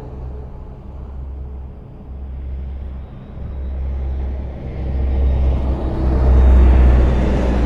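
Highway traffic: a steady low rumble of passing vehicles, swelling from about four seconds in as one vehicle draws near, loudest about six to seven seconds in.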